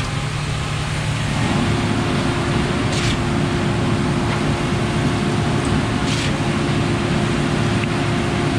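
Concrete pump truck running under load, its engine and hydraulics getting louder about a second and a half in and holding a steady whine. A short hiss comes about every three seconds.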